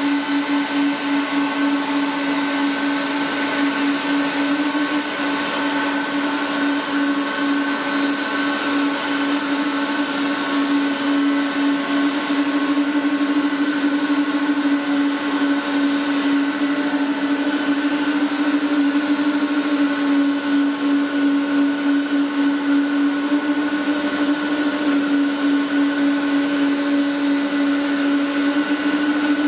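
Airliner jet engines running at low power, a steady whine with a strong hum that flutters slightly.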